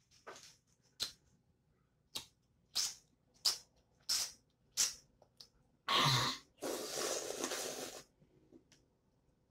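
A girl's short sharp breaths through the mouth, a string of them at about one every two-thirds of a second, then a sudden loud voiced burst, like a cough or sneeze, running into a long breathy exhale of about a second and a half.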